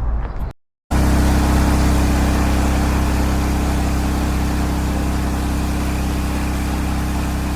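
Pressure washer's gas engine running steadily, with a constant hiss over it. It starts abruptly about a second in.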